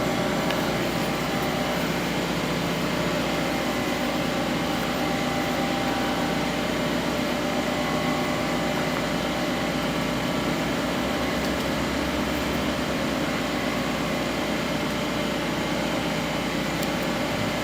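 Steady machine hum, even in level and pitch throughout, with several fixed tones over a broad noisy bed.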